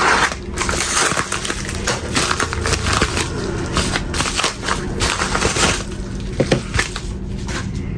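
A parcel being unwrapped by hand: packaging torn and crumpled, with irregular crinkling, crackling bursts and scattered sharp clicks.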